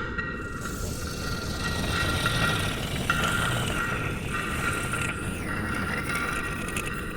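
Steady synthesized noise, like a radio receiver's static, with thin electronic tones and faint pitch glides over it as 'alien signals'. The tones drop out and come back every second or two.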